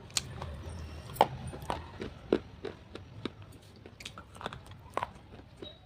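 Slate pencils being bitten and chewed close to the microphone: a string of sharp, irregular crunches and snaps, the loudest about a second in.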